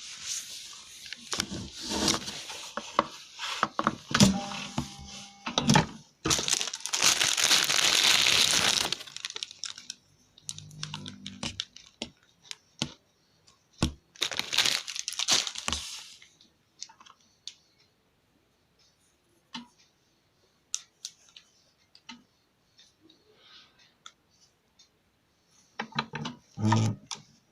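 Cloth being handled: rustling and crinkling, with two long swishes in the first half, then scattered light taps and clicks with near-quiet gaps between them.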